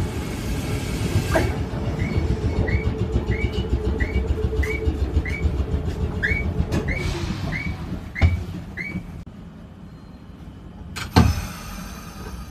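Keifuku Randen tram standing at a station: a steady hum from its equipment that fades out about two thirds of the way in, with a run of short high chirps repeating about twice a second. A few sharp thuds come through, the loudest about a second before the end.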